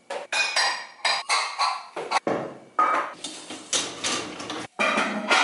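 Dishes, glasses and a stainless steel saucepan clinking and knocking as they are lifted out of a dishwasher's wire upper rack, a quick run of about a dozen clatters.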